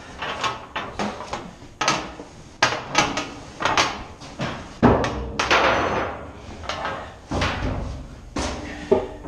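Hollow metal clanks and knocks of 16-inch powder cans being handled and bumped against each other, an irregular run of a dozen or more impacts with a short ringing tail, and a longer scrape about halfway through.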